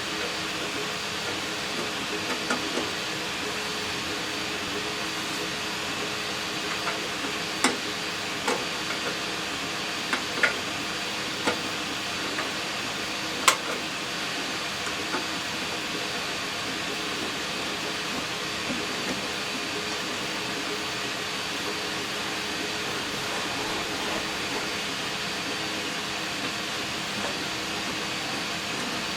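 A steady machine hum and hiss runs throughout, with a handful of sharp clicks and knocks from hand work on the cash register's wood trim, the loudest about thirteen seconds in.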